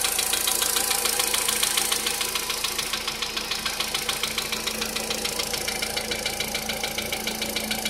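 Volkswagen Polo Sedan engine idling with a fast, even ticking knock. The owner cannot place the knock, which began at about 44,000 km.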